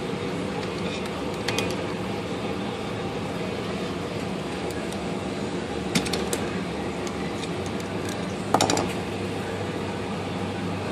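Three short metallic clicks and clinks of small parts and a tool being handled during reassembly, the loudest near the end, over a steady mechanical hum.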